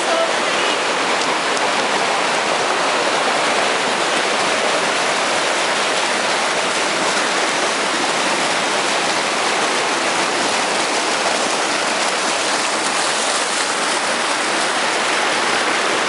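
Mountain creek rushing over rocks: a steady, loud wash of flowing water.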